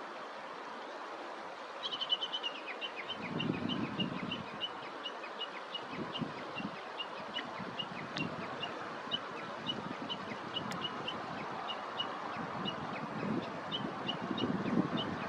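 Japanese bush warbler giving a long, steady series of short, repeated high notes, about three a second, starting about two seconds in. Faint outdoor hiss and a couple of low rumbles sit underneath.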